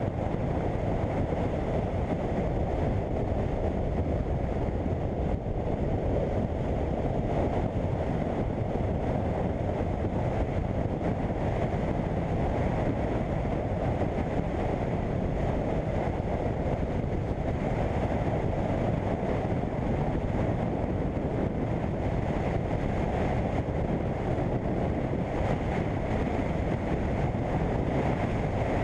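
Steady wind rush over the microphone mixed with the engine and road noise of a BMW F800GS motorcycle riding at a constant pace.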